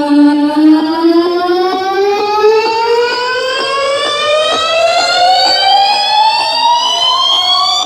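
A siren-like synthesizer tone with many overtones, held level for a moment and then rising steadily in pitch for several seconds: the build-up riser of an electronic dance track.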